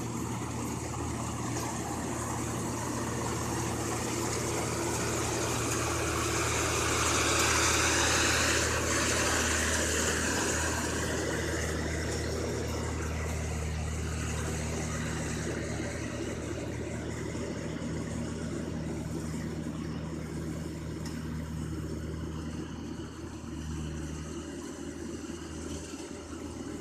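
Rice combine harvester engine running steadily with a low hum, a rushing noise swelling over it about seven to ten seconds in.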